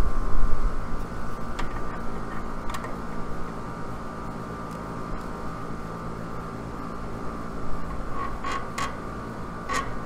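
Outdoor air-conditioner condensing unit running: a steady hum with a faint whine. A few light clicks of tools at the valve ports, most of them near the end.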